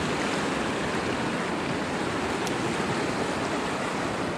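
Steady rushing of a creek's fast water pouring over a low weir and through riffles.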